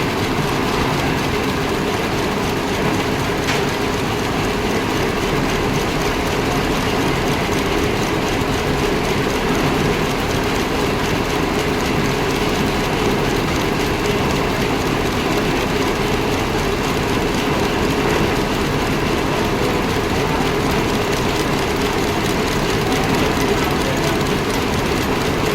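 A repaired machine running steadily with an even mechanical noise, now set right after its broken 'ghoda' part was replaced.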